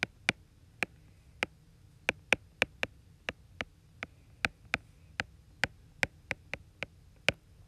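Stylus tip tapping and clicking on a tablet's glass screen while handwriting, about twenty sharp irregular ticks as words are written.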